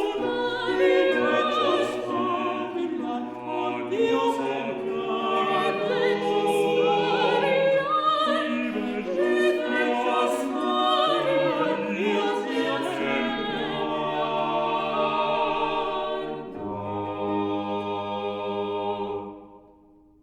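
Vocal ensemble singing a Renaissance four-voice madrigal, voices moving in counterpoint, then closing on a long held final chord that fades out near the end.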